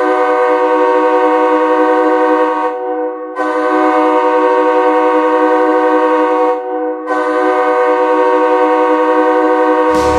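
Hockey arena goal horn sounding three long blasts of about three seconds each, a chord of several steady tones, with short gaps between them. Just before the end, the goal song's music cuts in with a heavy bass beat.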